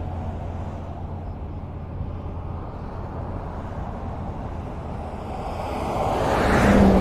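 Highway traffic: a steady low rumble of cars on the road, with one vehicle approaching and passing loudly near the end.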